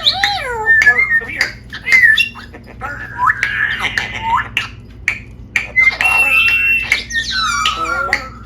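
A pet parrot calling: a rapid string of squawks, whistles and chatter whose pitch slides up and down, broken by short clicks.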